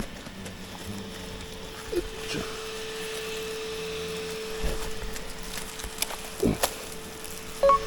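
Steady buzzing hum of Japanese giant hornets at an opened nest, starting about two seconds in, with a few knocks and scrapes from handling the nest comb.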